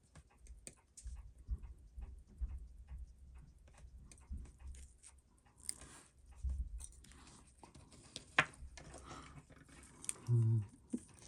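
Scattered small clicks and taps of metal tweezers and tools handling small watch case parts and pusher gaskets, with a short hum from a voice about ten seconds in.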